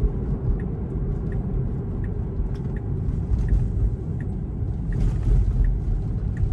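Road and tyre rumble inside a Tesla's cabin while it turns, with the turn-signal indicator ticking faintly about once every 0.7 seconds for a left turn.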